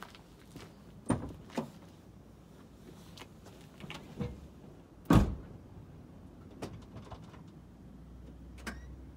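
Scattered clicks and knocks from a parked 1991 Mitsubishi Pajero before its engine is started, the loudest a heavy thump about five seconds in.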